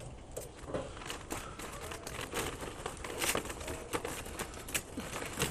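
Irregular clicks, clinks and crinkling rustle of lump charcoal being handled with metal tongs to refill a charcoal water smoker.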